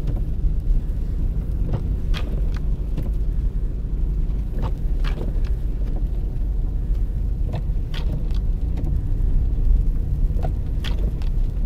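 Inside the cabin of a car driving on a snowy road, a steady low rumble from the engine and tyres. Short ticks come in pairs about every three seconds.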